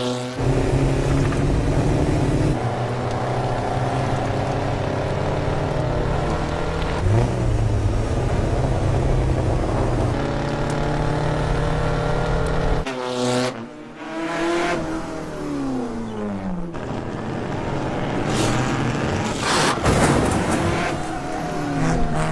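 Vintage race car engines running at high revs as the cars race past. The engine note jumps abruptly several times, and in the middle one car passes with its pitch falling away.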